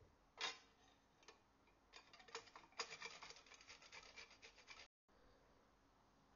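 A metal spoon scraping and stirring dry flour and chopped nuts in a glass blender jar. It gives a faint, gritty rasp with a sharp clink about half a second in, then a quick run of scrapes from about two seconds until nearly five seconds.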